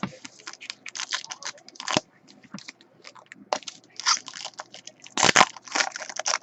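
Foil trading-card pack wrapper being torn open and crinkled as the cards are handled: an irregular run of short crackles and rustles, loudest about five seconds in.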